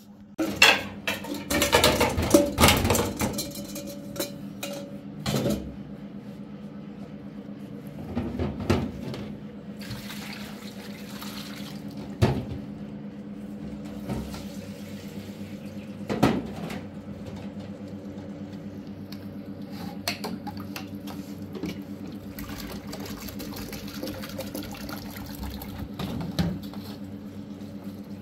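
Washing up at a metal kitchen sink: pots, dishes and a plastic jug knocking and clattering, loudest in the first few seconds and then every few seconds, with water running. A steady low hum underlies it all.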